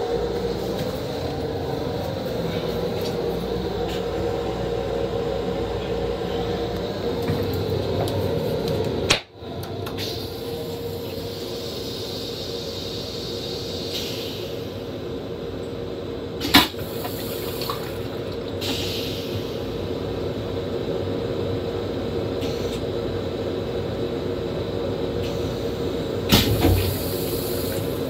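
Steady running rumble of an M7 commuter railcar heard inside its restroom, with the toilet flushing: a hiss of water, a sharp clack a little past the middle, and a short louder rush near the end.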